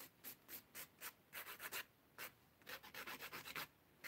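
Nail file rasping across acrylic stiletto nails in short, quick back-and-forth strokes, with a brief pause about two seconds in.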